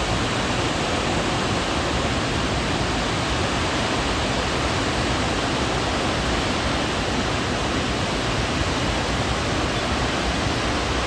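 Large waterfall with a heavy flow, a steady, even rush of falling water.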